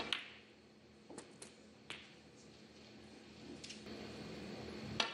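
Snooker balls clicking: a sharp click of ball striking ball at the start, a few fainter clicks over the next few seconds, and a quick run of clicks near the end.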